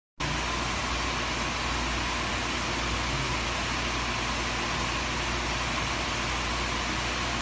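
Steady hiss with a low hum underneath, cutting in abruptly just after the start.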